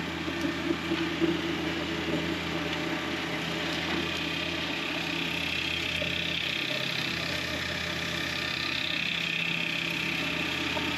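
John Deere 1025R compact tractor's three-cylinder diesel engine running steadily under load while driving an offset flail mower through grass and blackberry vines. It is a steady hum with a hiss over it, and the hiss grows somewhat stronger in the second half.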